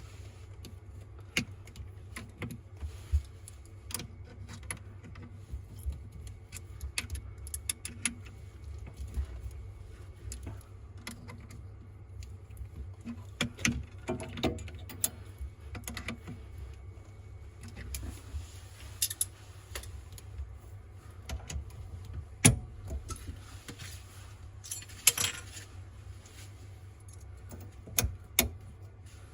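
Scattered light clicks and clinks of small hard objects being handled, at irregular times with a few louder knocks, over a steady low hum.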